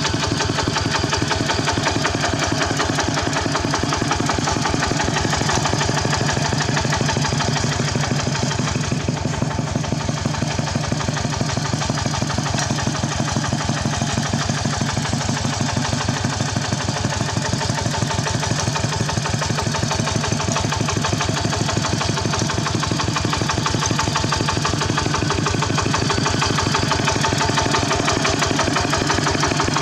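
Engine of a Khmer farm tractor running steadily, with a fast, even chug.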